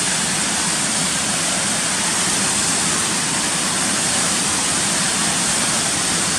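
A roughly 30-foot waterfall in heavy flow: the steady, unbroken rush of falling water.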